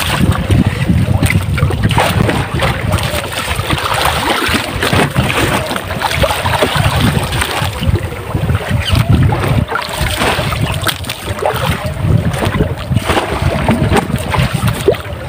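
Wind buffeting the microphone on a small boat, with water knocking and splashing against the hull and a faint steady hum underneath.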